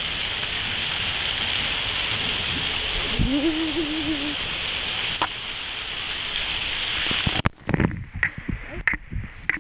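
Water from a pool play structure's jets and spouts rushing and splashing steadily onto and around a waterproof action camera, with a short vocal sound from a child about three seconds in. The rush cuts off suddenly near the end, followed by knocks and bumps on the camera.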